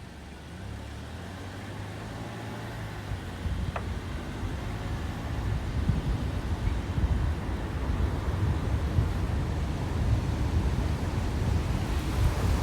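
Low rumbling wind noise on the microphone from a moving vehicle, growing steadily louder, with one faint click about four seconds in.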